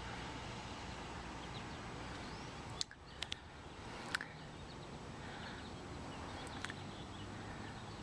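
Steady outdoor background hiss with faint bird chirps and a few short, sharp clicks scattered through it.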